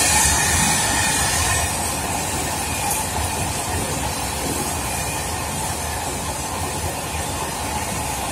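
Freight train's open wagons rolling past at speed: a steady noise of steel wheels on rails, easing slightly about two seconds in.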